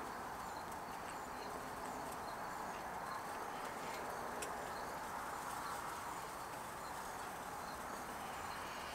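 Quiet evening outdoor ambience: a steady faint background with insects chirping softly, and a single light click about four and a half seconds in.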